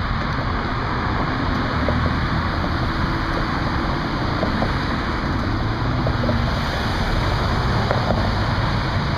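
Steady rumble of vehicle engines and traffic under an even rushing noise.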